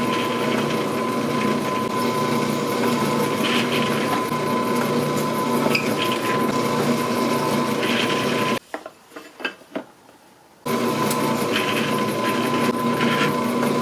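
Electric drill with a twist bit boring through a metal strip into MDF, its motor running with a steady whine. About eight and a half seconds in it stops for about two seconds, with a few light knocks, then starts drilling again.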